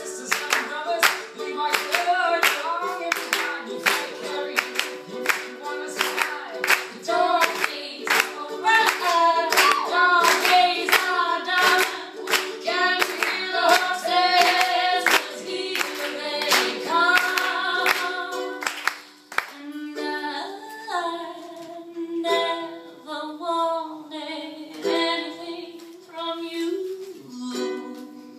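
Two voices, a man's and a woman's, singing live over a strummed string instrument, with steady rhythmic hand clapping that stops about two-thirds of the way through, leaving the voices and strings.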